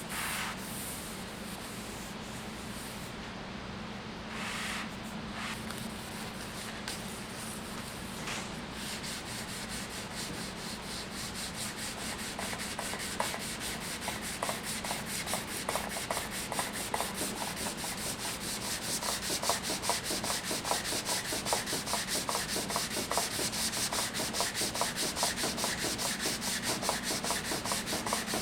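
Hand wet-sanding the cured finish of a wooden stave drum shell with 320-grit sandpaper wrapped around a rubber pad. Softer rubbing at first, then quick, regular back-and-forth strokes from about nine seconds in, growing louder, over a steady low hum.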